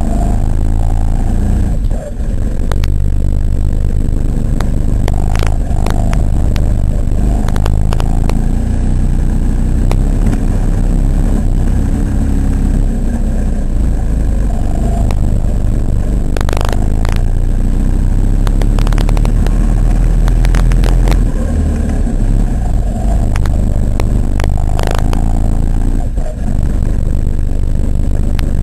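Indoor go-kart engine heard from an onboard camera on the kart, running under throttle, its pitch rising and falling through the corners over a heavy rumble. Occasional sharp knocks come through now and then.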